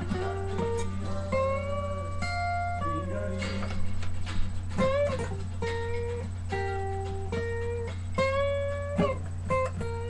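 Acoustic guitar played with a pick: single notes and short runs, some held and left ringing, with no singing. A steady low hum sits underneath.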